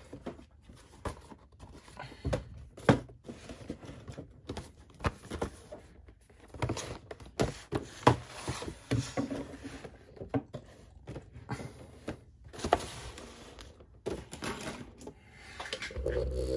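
Cardboard action-figure boxes being handled and set down on a wooden desk: irregular light knocks and taps, a few of them louder.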